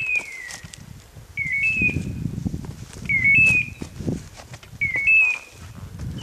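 Electronic beeper collar on a hunting setter sounding a short two-note chirp that steps up in pitch, repeating evenly about every 1.7 seconds, the steady signal such collars give while the dog holds point. Under it, footsteps crunch and brush rustles through forest undergrowth.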